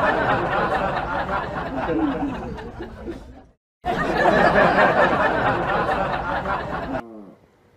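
A dense hubbub of several people's voices chattering and laughing. It breaks off briefly about three and a half seconds in, then a near-identical stretch starts again and stops suddenly about seven seconds in.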